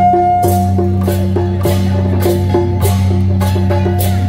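Beiguan temple percussion of drum, gongs and cymbals playing a steady, brisk beat over a steady low hum.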